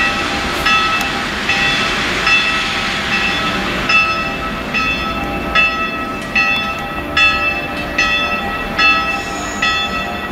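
A bell tolling in a steady rhythm, about one stroke every 0.8 seconds, each stroke ringing on into the next. Under the first second runs the low rumble of a distant red DB Ludmilla-type diesel locomotive, which fades away.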